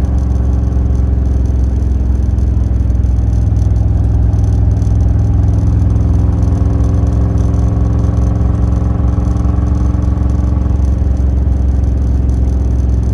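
A 396 big-block V8 with a chambered exhaust in a 1968 Camaro, heard from inside the cabin, cruising at low speed in third gear. The engine note stays steady, with a slight rise and fall in pitch midway.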